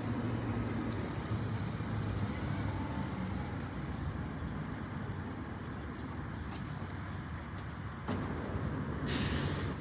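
Fire engine running steadily with a low engine hum, and a short hiss near the end.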